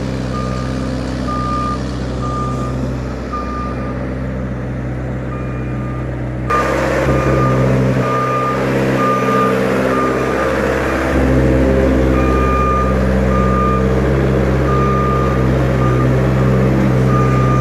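Delivery truck reversing: its backup alarm beeps repeatedly over the steady running of its engine, which gets louder partway through.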